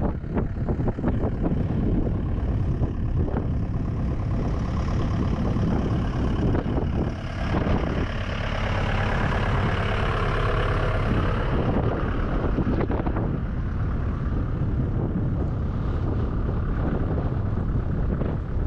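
Wind buffeting the microphone in a steady low rumble, with a broader rushing hiss that swells in the middle and fades about twelve seconds in.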